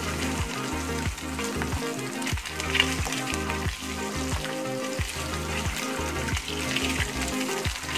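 Boiled eggs and small potatoes sizzling as they fry in hot oil in a pan, turned now and then with a metal spoon. Background music with a steady beat plays underneath.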